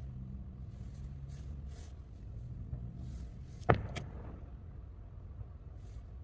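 Aerial firework shell bursting about 1.2 km away: one sharp bang a little past halfway, then a fainter crack, over a low steady rumble.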